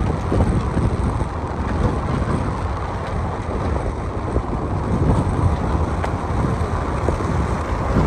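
A car driving along an unpaved gravel road: steady tyre and road rumble with wind buffeting the microphone.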